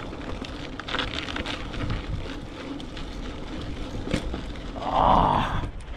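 Giant ATX mountain bike rolling over a sandy dirt trail: steady tyre and drivetrain noise with small rattles and clicks, and wind on the microphone. A brief louder hiss comes about five seconds in.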